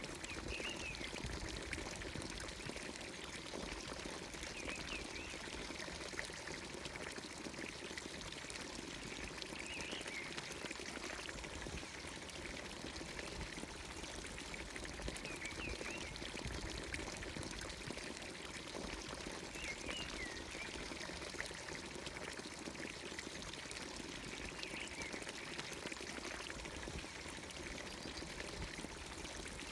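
Steady stream of water pouring from a traditional Anatolian village fountain's spout into its trough. A bird gives a short chirp about every five seconds.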